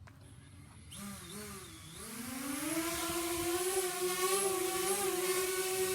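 DJI Spark quadcopter's propeller motors whirring. The whine appears about a second in, wavers, rises in pitch over the next second as the motors spin up, then holds a steady hovering hum with a thin high whine above it.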